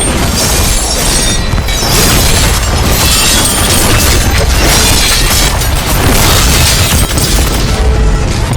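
Loud, dense layered fight sound effects for an anime battle scene: booms, crashes and shattering impacts over music, unbroken throughout.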